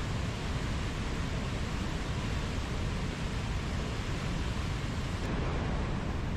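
Mountain stream rushing over rocks: a steady, even wash of flowing water.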